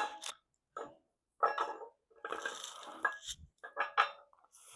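Camshaft of a Mercedes M110 engine being worked into its oiled bearings in the camshaft carrier: a run of irregular light metallic clinks and scrapes, steel on aluminium.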